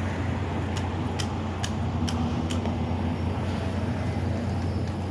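An engine running steadily with a low hum. From just under a second in there are five sharp ticks, evenly spaced about half a second apart.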